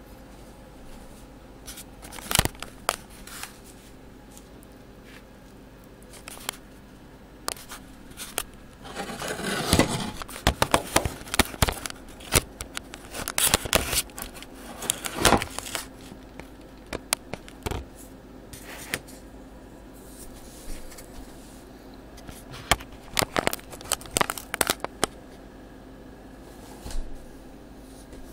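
Spatula scraping peanut butter out of a glass measuring cup into a thin foil pie pan: irregular clicks, knocks and scrapes, with a longer run of scraping and crinkling from about nine to sixteen seconds in.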